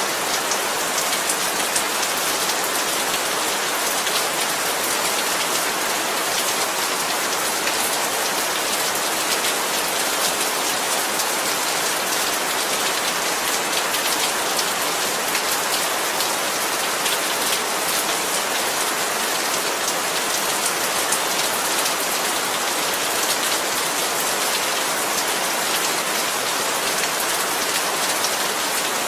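Heavy, steady rain pouring down, a dense hiss of drops striking surfaces with fine individual drop ticks all through.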